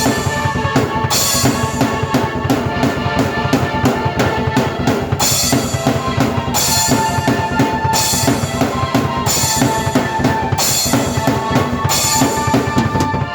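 Drum kit and keyboard played at the same time: a driving beat of bass drum and snare, with cymbal crashes about every second and a half, over held keyboard notes.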